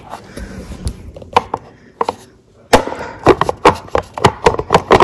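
Hard plastic cup holder on a folding camp rocking chair being handled and knocked against its mounts: scattered light clicks, then from about three seconds in a quick run of sharp knocks, several a second.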